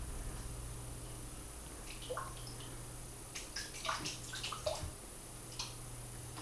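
A kitten pawing at the water surface of an aquarium: small splashes and drips, busiest between about two and five seconds in, over a steady low hum.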